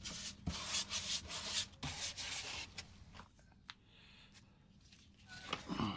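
Rough rubbing or scraping strokes on a surface, several in quick succession for about three seconds, then mostly quiet with a few faint knocks near the end.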